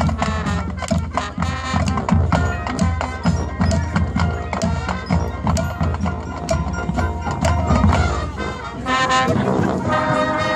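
Marching band playing: the drumline and front-ensemble percussion keep a fast, busy rhythm over a steady bass, and about nine seconds in the wind section comes in with long held chords.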